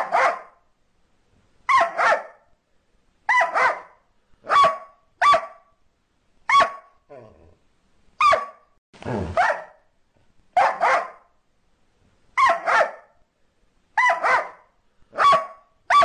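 Border collie barking over and over: short, sharp barks, some single and some in quick pairs, about every second and a half.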